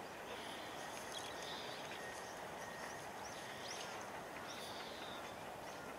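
Faint open-field ambience with scattered short, high bird chirps every second or so.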